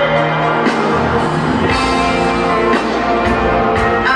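Live rock band music with electric guitar, recorded from the audience in an arena, sustained chords changing every second or so.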